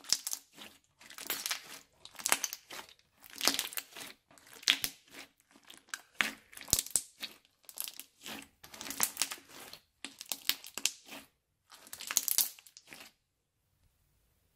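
Hands squeezing and kneading a fluffy slime packed with plastic letter beads: a run of crunchy, crackly squishes, about one or two a second, that stops about a second and a half before the end.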